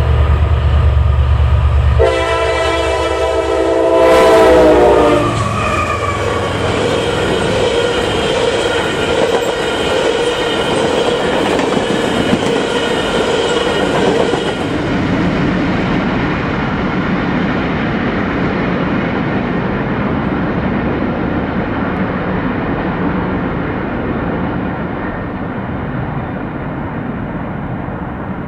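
EMD SD60E diesel locomotive rumbling as it approaches, then its air horn sounds one chord for about three seconds, dropping in pitch as the locomotive passes. A long string of freight gondola cars follows, rolling past on the rails with a steady whine for a while, then fading slowly as the train moves away.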